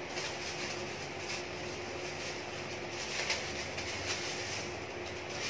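A few soft rustles of plastic packaging being handled and unwrapped over a steady room hum like a fan or air conditioner.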